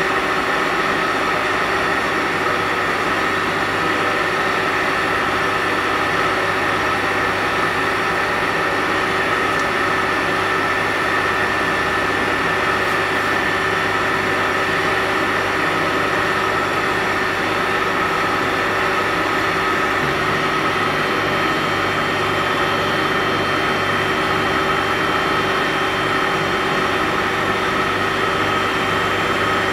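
CO2 laser engraving and cutting machine running, a steady mechanical hum with several held tones. The low hum shifts slightly about two-thirds of the way through.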